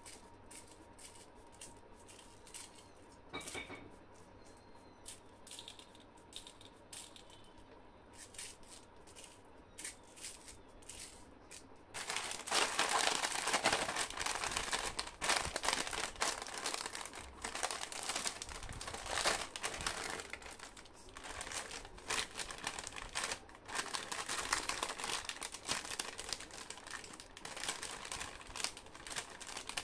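Light clicks and rustles of plastic-wrapped sweets being handled for the first twelve seconds or so. Then a foil-lined plastic chips packet (Haldiram's Halke Fulke) is crinkled loudly and torn open.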